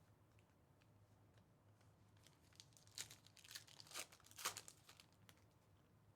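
Plastic trading-card packaging or sleeves being handled: a quiet run of sharp crackles and rustles about two to five seconds in, the loudest near four and a half seconds.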